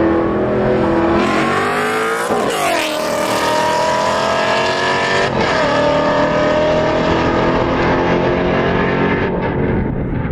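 Two V8 cars, a supercharged Chevrolet Camaro ZL1 and a Coyote-V8-swapped Ford Mustang, racing at full throttle. Engine pitch climbs, drops sharply at upshifts about two and five seconds in, and climbs again, then eases slightly near the end.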